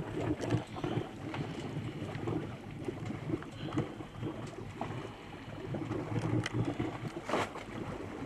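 Soft, irregular handling rustles and small crackles as hands squeeze a plastic bottle of scented bait oil over a rigged herring. Two sharper crackles come about six and a half and seven and a half seconds in, over light wind on the microphone.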